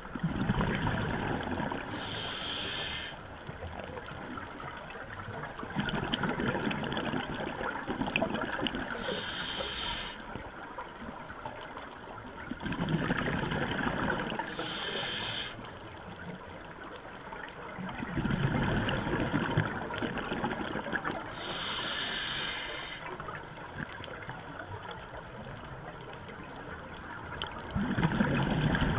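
Scuba regulator breathing underwater: a short hissing inhale through the regulator alternating with a longer rush of exhaled bubbles, about five breaths, one every six or seven seconds.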